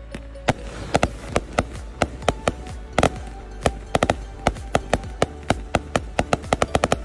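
A 396-shot firework cake with 0.8-inch tubes firing shot after shot in sharp pops, about four a second, quickening to a rapid run near the end.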